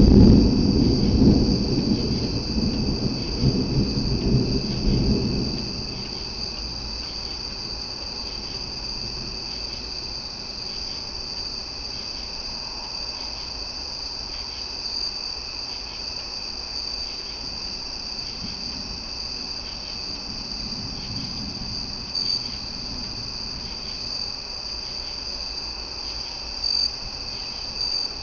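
Rolling thunder rumbles loudly for the first six seconds or so and dies away, with a fainter rumble about two-thirds of the way through. Under it a loud, steady chorus of crickets chirps throughout.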